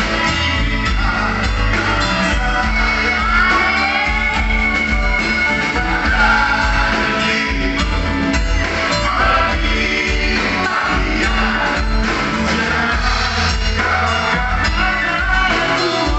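Live band playing a rock-style song with a singer's voice over electric guitar, bass and drums.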